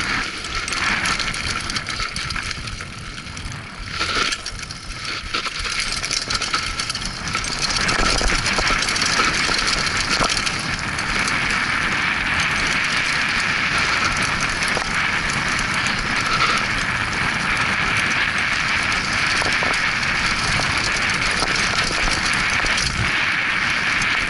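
Mountain bike riding fast down a dirt and gravel trail: tyres crunching over loose ground and the bike rattling over bumps, under steady wind noise on the microphone. It grows louder about eight seconds in as the speed picks up.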